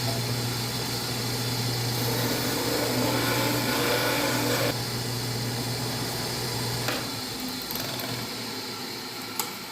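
Homemade belt-driven disc sander, an old grinding-motor arbor turned by an electric motor, running with a steady hum while a wooden disc is pressed against the sanding disc. About seven seconds in the motor is switched off and the sound winds down as the disc coasts to a stop.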